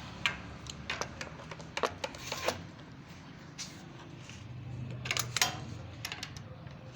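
Hand tools and metal pipe fittings clicking and clinking in scattered sharp knocks, with small clusters about two and five seconds in, during a geyser installation.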